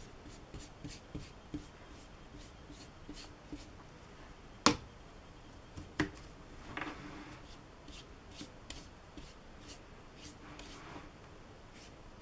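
A paintbrush working dark wash onto watercolour paper and tapping among the paints: soft brush scrubbing and small scattered ticks, with two sharper knocks about four and a half and six seconds in.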